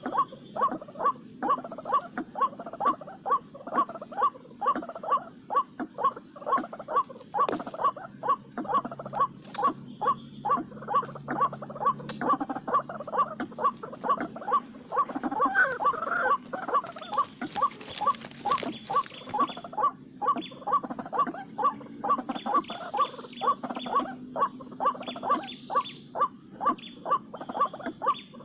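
White-breasted waterhen's ruak call: short croaking notes repeated in a steady rhythm of about two a second. Scattered clicks and rustling come in about halfway through.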